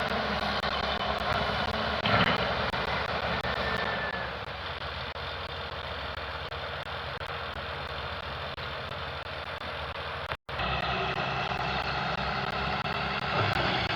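CAT hydraulic excavator's diesel engine running steadily, with a brief loud knock about two seconds in. The engine settles a little lower after about four seconds, cuts out for an instant near ten seconds, then runs louder again.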